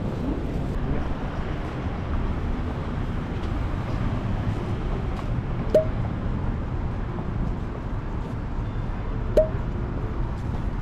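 Steady low rumble of background noise, broken twice by a short, sharp clink with a brief ring, about three and a half seconds apart.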